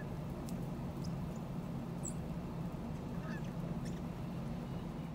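Steady low hum of an idling car, with a few faint, short distant calls.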